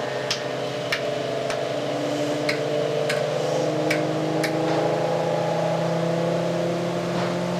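The hum of an induction motor driving an eight-coil generator, rising slowly in pitch as the system speeds up while its coils are switched in under load. About seven sharp switch clicks sound in the first four and a half seconds as the coils are engaged one by one.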